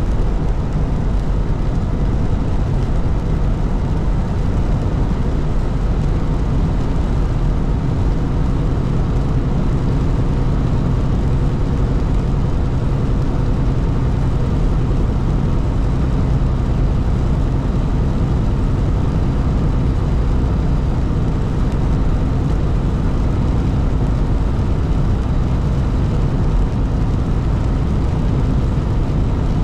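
Steady low drone of a truck driving on the highway, engine and road noise heard from inside the cab.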